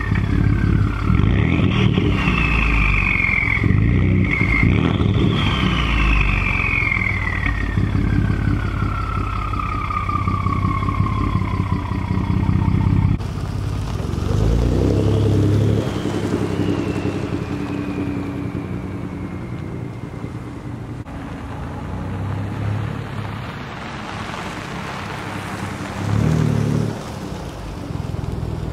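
Ford F-150's 3.5L EcoBoost twin-turbo V6 revved again and again through a muffler- and resonator-deleted exhaust, with the turbos whistling: each whistle rises briefly with the revs, then falls away slowly as they spool down. About halfway through, the sound changes to a quieter, rougher engine with one more falling whistle, and a short rev near the end.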